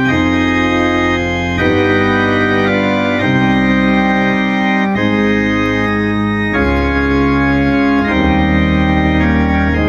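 Electronic church organ with two keyboards playing slow, held chords over deep bass notes, the harmony changing every second or two.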